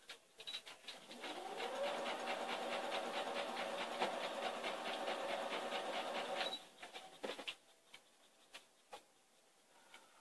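Electric sewing machine running: the motor speeds up with a rising whine, stitches steadily at a fast even rate for about five seconds, then stops. A few light clicks follow.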